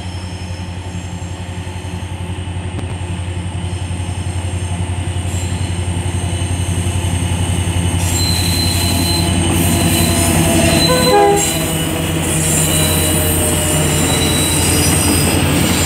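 Diesel locomotive's engine running under load, its low drone growing steadily louder as it approaches and passes. About eleven seconds in there is a brief horn-like chord, and passenger cars roll by after it with a thin high wheel squeal on the curve.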